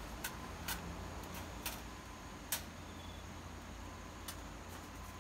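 A wire cage trap being handled and set down in dense brush: a handful of separate sharp clicks and snaps, about five in all, over a low steady rumble.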